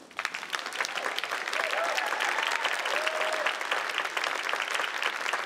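Audience applauding, starting just as the music ends and building to full strength within the first second, with a few voices calling out from the crowd partway through.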